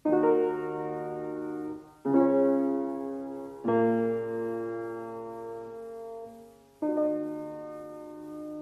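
Keyboard instrument playing four slow chords, each struck and left to ring and fade: the instrumental opening of a song.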